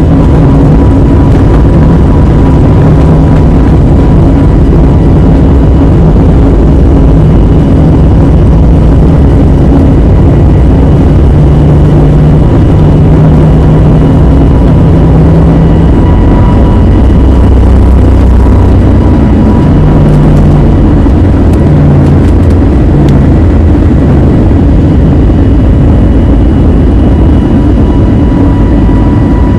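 Airbus A320-251N's CFM LEAP-1A jet engines heard from inside the cabin: a loud, steady roar of engine and airflow with faint steady whining tones on top.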